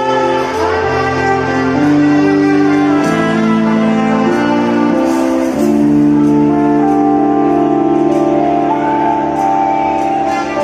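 Live violin through a PA sound system, playing a slow melody of long held notes over keyboard chords and a steady bass line.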